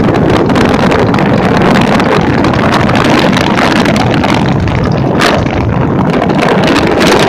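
Royal Enfield Bullet motorcycle's single-cylinder engine running steadily under way, with wind buffeting the microphone.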